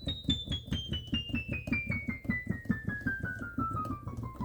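Software acoustic piano played from a MIDI keyboard, single notes struck one after another in a steady descending run, about six notes a second, the pitch falling evenly from the high treble into the middle register: a key-by-key check that every key sounds after a contact repair.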